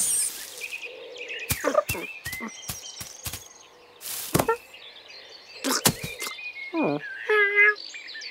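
Cartoon sound effects: a run of sharp thumps and rustles as a cartoon cat scrambles over a hay bale and pounces on a mouse, with faint birds chirping behind. Near the end come short cat calls, one falling in pitch.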